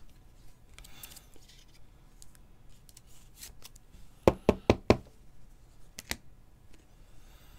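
Trading cards handled on a tabletop: a quick run of about five sharp clicks and taps a little over four seconds in, then two more near six seconds in, between faint shuffling.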